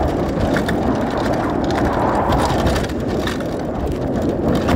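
Downhill mountain bike riding fast over a rough dirt trail: a steady rush of wind and tyre noise on the handlebar-mounted phone's microphone, with many quick rattling knocks from the bike over bumps.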